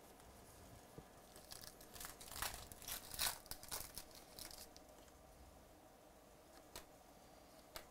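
Foil wrapper of a baseball card pack torn open by hand: a few seconds of crinkly ripping, loudest near the middle, then a couple of short clicks as the cards are handled.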